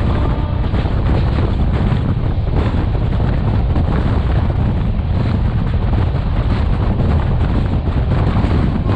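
Steady, loud wind buffeting on a microphone held outside a fast-moving Shatabdi Express coach, over the train's low running rumble.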